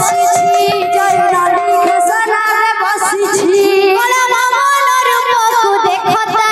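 A young woman singing an Odia devotional kirtan song, accompanied by double-headed barrel drums played by hand; she holds one long note for about a second near the middle.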